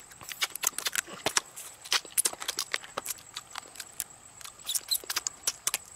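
Cooked crab shell cracking and crunching close up as it is bitten, picked apart by hand and chewed: a run of sharp, irregular clicks, several a second.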